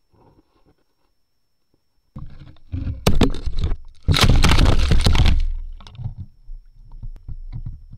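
Near silence at first, then an action camera is hauled up through the water and out of a hole in the ice: rushing water and knocks and scrapes against the camera housing, loudest for about a second and a half past the middle, easing into lighter scraping and clicks once it is out on the ice.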